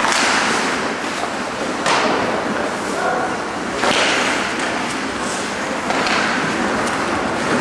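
Ice hockey game in an indoor rink: a steady hiss of skates and rink noise, broken by sharp knocks of play against the boards about every two seconds.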